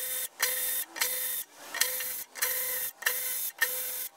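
A hand tool or small power tool backs out the transmission valve body's bolts in short, evenly repeated bursts of about half a second, roughly one and a half a second. Each burst starts sharply and holds a steady pitch.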